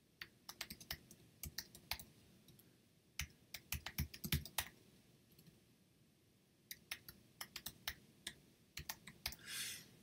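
Typing on a computer keyboard in quick runs of keystrokes, with a pause of about two seconds in the middle. There is a brief hiss near the end.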